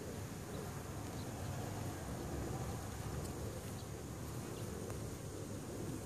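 Honey bee colony buzzing steadily around its exposed comb.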